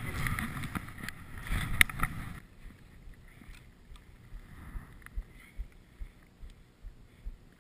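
Skis sliding through snow, with wind rushing over a helmet camera's microphone and a sharp knock just before it cuts off, about two and a half seconds in. After that only faint wind noise with occasional low bumps.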